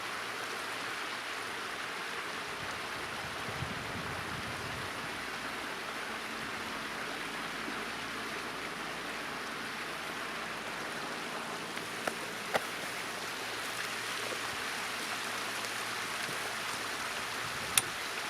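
Steady rushing noise of running water, with a few sharp clicks about twelve seconds in and one near the end.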